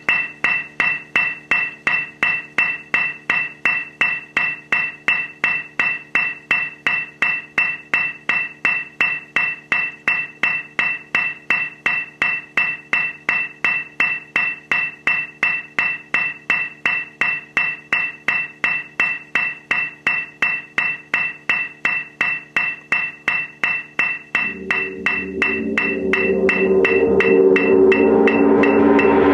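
A metronome clicking steadily, about three clicks a second. About 24 seconds in, a mallet roll on a suspended cymbal swells in over the clicks and grows loud.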